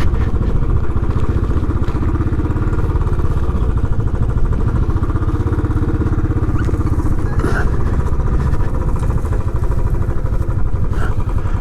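Royal Enfield Classic 500's single-cylinder engine running steadily at low speed, its even low thump carrying through a slow U-turn on a rough dirt track, with a couple of brief clicks.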